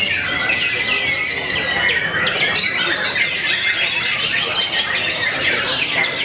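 White-rumped shamas (murai batu) singing over one another: a dense run of rapid chirps and quick rising and falling whistles, with one steady high note held for about two seconds near the start.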